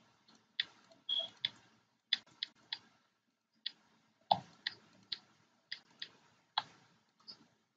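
Irregular sharp clicks of a computer being worked by hand, over a dozen at uneven spacing, some in quick pairs.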